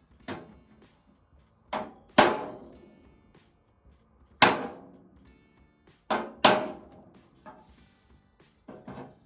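Hammer tapping on chrome body trim to straighten it so its clips will fit: about eight sharp metal strikes at an uneven pace, each with a short metallic ring.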